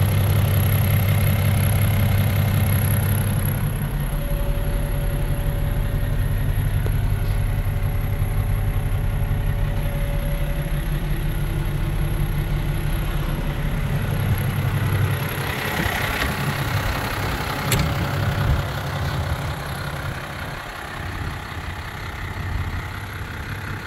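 New Holland 7840 tractor's diesel engine idling steadily, its low hum heaviest at first and easing later. A single sharp click comes about 18 seconds in.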